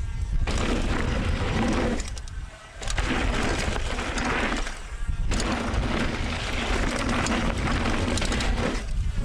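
Mountain bike riding down a dirt trail, recorded through a GoPro Hero 7's stereo-only microphones under a Wind Slayer foam cover: a steady rush of tyres and bike rattle over a low wind rumble, dropping away briefly twice.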